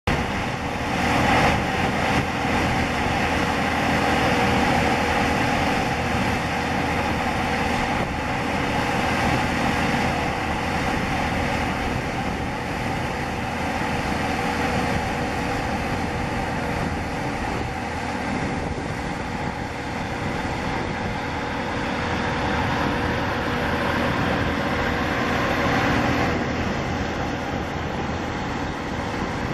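Jet engines of landing Boeing 737-800 airliners, CFM56-7B turbofans, running steadily with a constant whine over the engine noise.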